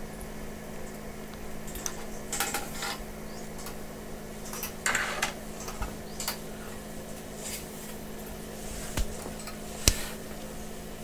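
Scattered light clicks and scrapes from handling a room heater's metal reflector and its glass heating tubes as their end caps are pressed into the clips. The loudest are a scrape about five seconds in and a sharp click near the end, over a steady low hum.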